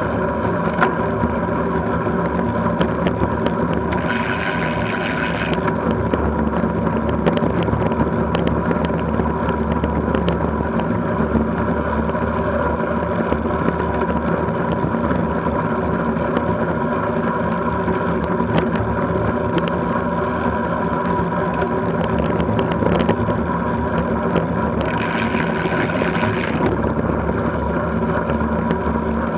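Steady rumble and wind noise from a road bike moving fast on a rough country lane, picked up by a camera mounted on the bike, with many small ticks and knocks from the road surface.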